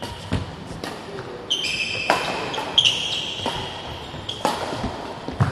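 Badminton doubles rally: sharp pops of rackets striking the shuttlecock, with court shoes squeaking on the mat.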